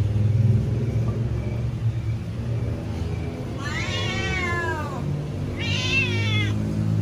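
Domestic cat meowing twice while begging for food: first a long meow that rises and then falls in pitch, then a shorter one, over a steady low hum.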